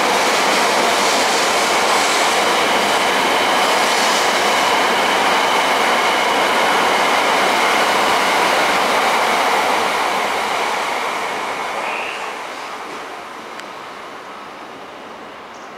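JR Central 300 series Shinkansen train pulling out and accelerating away: a loud, steady rush of wheels and running gear with a faint high whine, fading from about ten seconds in as the train recedes.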